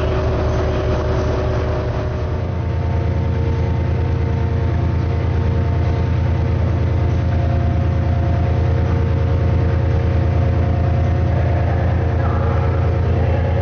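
Diesel train engine running steadily close by, a loud deep hum with several steady tones above it whose note shifts slightly about two seconds in.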